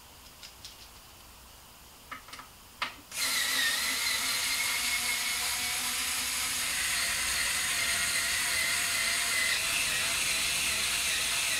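Small handheld electric drill or power screwdriver running steadily with a slightly wavering whine, driving bolts up into the stringing machine's mounting table. A few light tool-handling clicks come before it starts about three seconds in, and it cuts off at the end.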